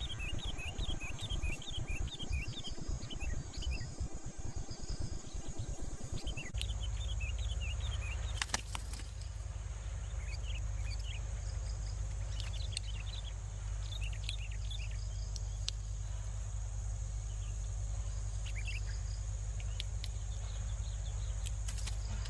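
Birds giving short, repeated chirps, with a quick run of them in the first few seconds and scattered calls after, typical of sooty-headed bulbuls. Behind them runs a steady high insect drone and a low hum, with low rumbling noise in the first six seconds and a sharp click about eight and a half seconds in.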